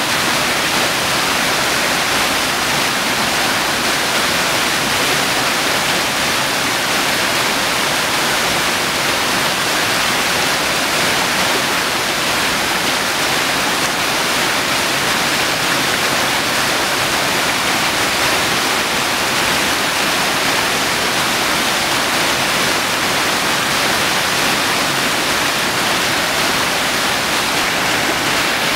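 Shallow rocky creek rushing over stones: a steady, even hiss of running water with no breaks.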